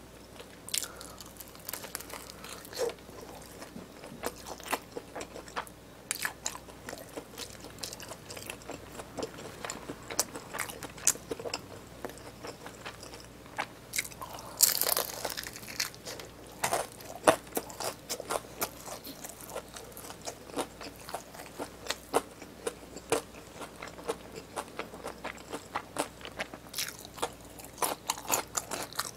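Close-up crunching and chewing of a crispy seasoned fried chicken drumstick: many short crisp crackles throughout, with one louder, longer crunch about halfway through as a big bite is taken.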